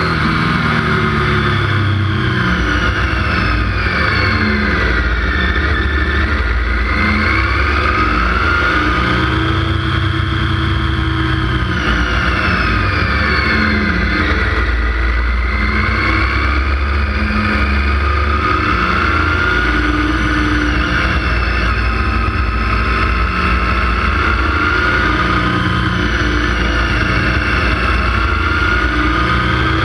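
Motorcycle engine running at road speed, its pitch rising and falling slowly as the throttle opens and closes, over steady wind and road noise.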